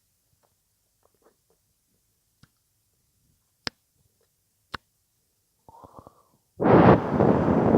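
ASMR mouth sounds close to the microphone: a few sharp, isolated clicks, then near the end a loud rushing noise lasting about two seconds.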